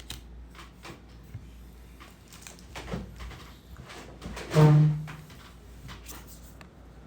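Oracle cards being handled and flipped, with scattered light taps and clicks. About four and a half seconds in, a short hummed voice sound is the loudest thing.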